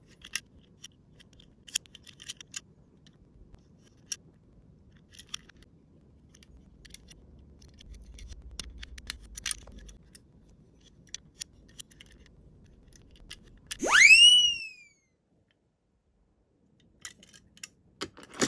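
Scattered light clicks and taps of a Tomica die-cast toy police car, with a faint low rumble about six to ten seconds in. About fourteen seconds in, a loud cartoon sound effect sweeps sharply up in pitch and slides back down, lasting about a second.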